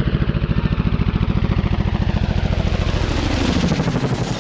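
Chinook tandem-rotor helicopter passing low overhead: rapid, even thumping of the rotor blades over the turbine noise, the pitch dipping as it goes over near the end.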